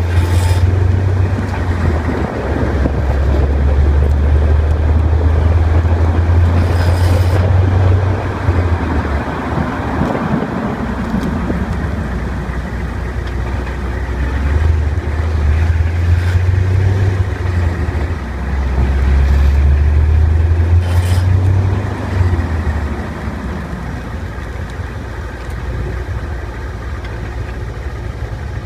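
1998 Chevrolet Corvette's LS1 V8 running, a loud deep drone that swells and eases several times.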